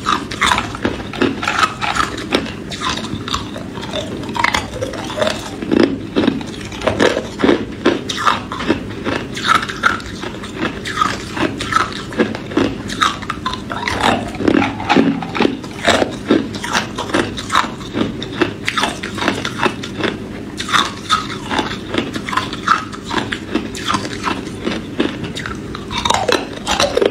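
Hard ice cubes being bitten and crunched between the teeth, a quick, uneven series of crisp cracks that goes on all through.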